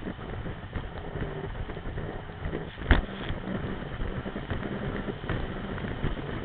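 Sea-Doo RXP-X 255 RS jet ski's supercharged three-cylinder engine running under way over choppy water, with wind on the microphone. Sharp knocks of the hull striking the chop break in now and then, the loudest about three seconds in.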